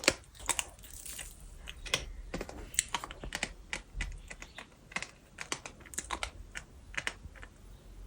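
Gritty bird sand crunching as it is chewed close to the microphone: a quick, irregular run of sharp crackling clicks.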